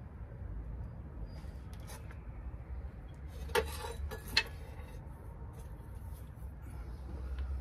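Two sharp metallic clinks about a second apart, from a tool or fitting knocking against the van's front kingpin and steering joint, over a low steady rumble, with a few fainter knocks before them.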